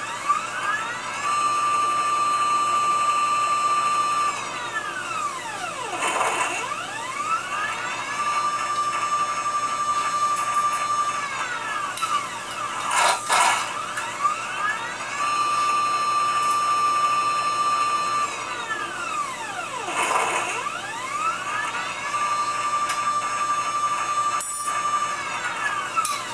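CNC wire bender's motor whining through its automatic bend cycles on 5/32 piano wire. The pitch rises, holds steady for about three seconds, then falls away and climbs again as the bender backs up and starts the next bend, four times over, with a couple of short clicks.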